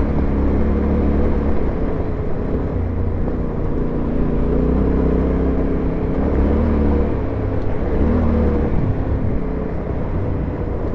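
Yamaha Ténéré 700's parallel-twin engine running while the bike is ridden, with small rises and falls in engine speed.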